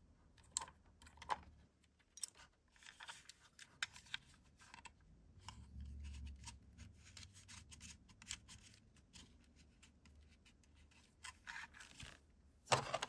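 Faint handling noise from a wireless lavalier mic unit and its AA batteries: scattered small plastic clicks and scratches, with a soft low rumble around the middle.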